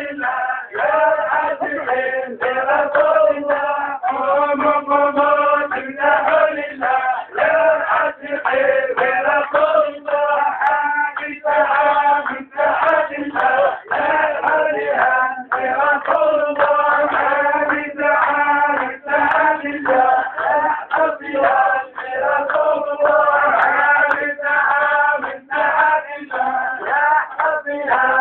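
A group of men chanting together in unison, a melodic religious chant sung continuously with brief breaks between phrases.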